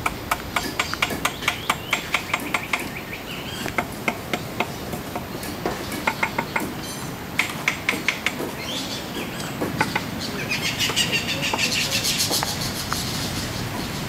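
Rapid, sharp tool taps in runs of several strikes a second, like light hammering on a building site. A denser patch of high bird chirping comes near the end.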